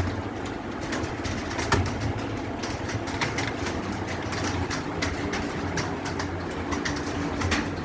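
Computer keyboard typing: a steady run of irregular key clicks, several a second, over a low steady hum.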